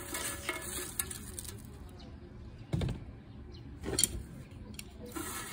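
Dry, crumbled herb leaves pouring into a dark metal pan, a steady crackly rustle, with two dull knocks against the pan about three and four seconds in.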